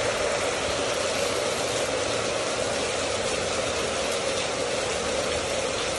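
Heavy rain, with water overflowing a roof gutter and pouring off the eave in many streams onto the ground: a steady, even rush of falling water.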